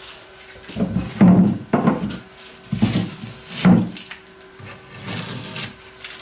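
Hardwood boat knees being handled and set on a wooden thwart: several short knocks of wood on wood, with wood rubbing on wood between them.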